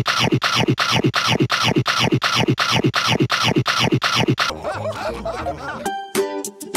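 A short comic sound effect stuttered in a rapid loop, about four hits a second, each a quick falling sweep, cut off about four and a half seconds in. A brief burst of voice follows, then ukulele music starts near the end.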